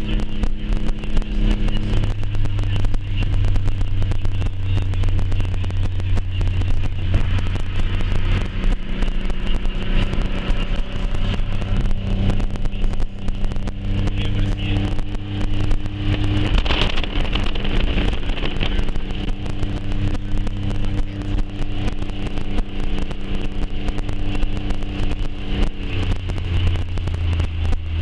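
Car engine running, heard from inside the cabin while driving, its hum shifting a few times, under a steady hiss of wind and rain against the car.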